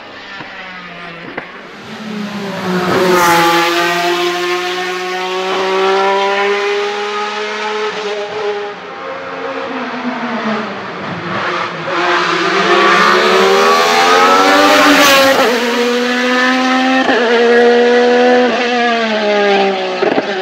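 Alfa Romeo 155 DTM's 2.5-litre 690RC V6 racing engine at very high revs, pitch climbing, then dropping sharply at gearshifts and braking for corners, and climbing again. A few sharp cracks come at the shifts. It is loudest as the car passes close, a few seconds in and again about three quarters of the way through.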